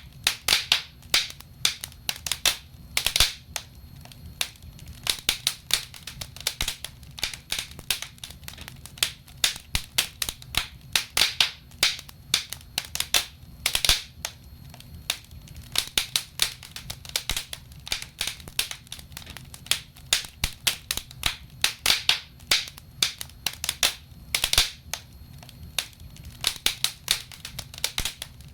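Wood logs burning in a fireplace, crackling with sharp, irregular pops several times a second over a faint low rumble.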